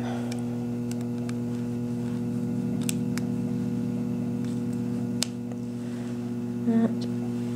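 Steady electrical mains hum, with a few faint clicks and a brief louder blip near the end.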